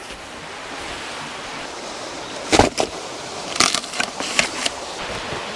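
A creek rushing steadily, with a sharp knock about two and a half seconds in and a few lighter clicks a second or so later.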